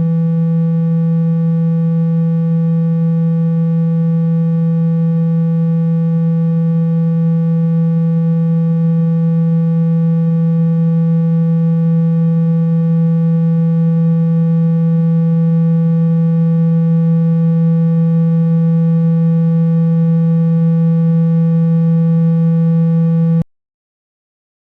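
A steady low-pitched speaker-cleaning tone, the kind played at full volume to shake water and dust out of a phone's speaker. It holds one pitch and level throughout, then cuts off suddenly near the end.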